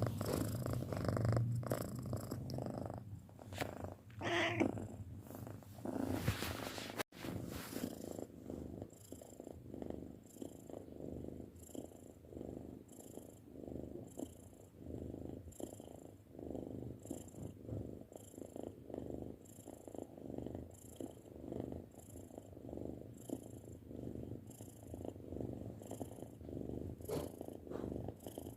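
A six-month-old domestic cat purring steadily, the purr swelling and fading in a regular rhythm with its breathing.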